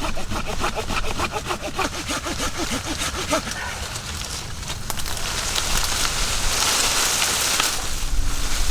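Small hand saw cutting through a tree branch with quick, rhythmic back-and-forth strokes, then a rasping hiss.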